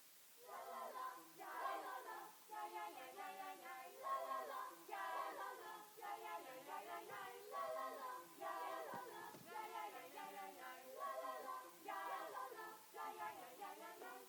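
Show choir of several voices singing in harmony, starting about half a second in, in short rhythmic phrases with no words picked out.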